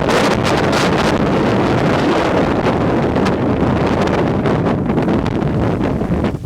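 Gale-force mountain wind blasting across the camera microphone: a loud, continuous rush of wind noise that dips briefly at the very end.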